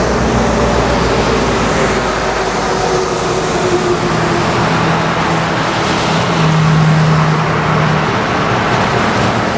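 Road traffic passing on a highway, tyre noise and car engines, with a pitch that falls over the first few seconds as a vehicle goes by and a steady hum from one vehicle around the middle, over the low idle of diesel locomotives.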